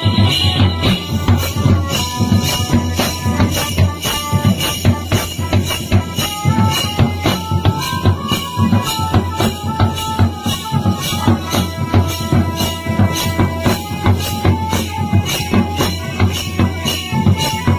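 Live folk band accompanying a stick-fighting game: large bass drums beaten with mallets and metal hand percussion keep a fast, steady beat, with a melody in long held notes over the top.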